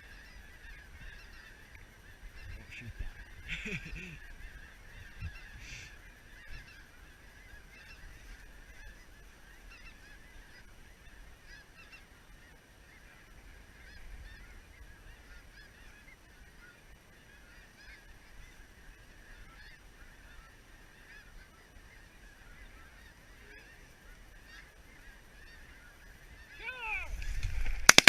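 A large flock of snow geese calling, a continuous chorus of many overlapping honks and yelps, growing louder near the end.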